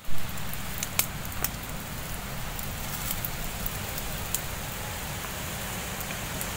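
Small fire of dry twigs and sticks burning with a steady hiss and crackle, and a few sharp pops. The fire has only just been lit and is still mostly smoking. A brief loud knock comes right at the start.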